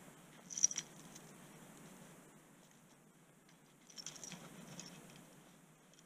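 Faint scrapes and small clicks of hands working at a trap set in the ground, in two short clusters, about half a second in and again about four seconds in.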